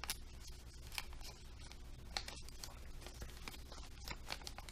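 Folded origami paper rustling faintly as fingers open it back up and handle it, with a few brief crackles of the creased paper.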